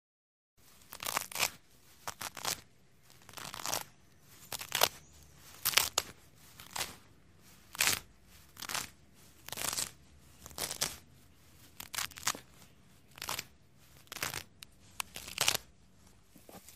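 Potato chips being chewed close to the microphone: crisp crunching bursts about once a second, starting about half a second in after a moment of silence.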